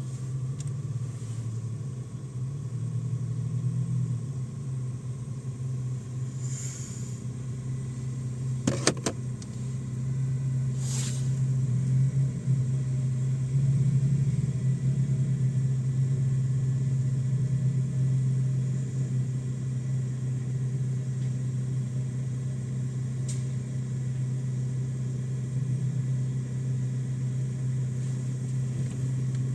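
Car engine running steadily with a low drone, rising a little in level partway through. A sharp knock comes about nine seconds in and a short rattle about two seconds later.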